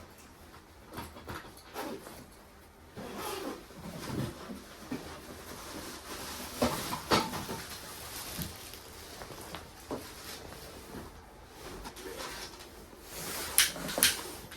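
Irregular light knocks, clicks and rustles of objects being handled, with two sharper clicks near the end.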